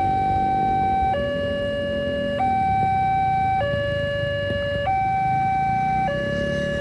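Railway level-crossing warning alarm sounding: an electronic two-tone siren that alternates steadily between a higher and a lower note, each held a little over a second.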